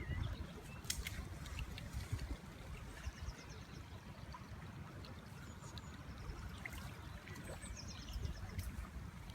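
River water running, with wind rumbling on the microphone. A small bird gives a quick run of high chirps about three seconds in and again near the eighth second.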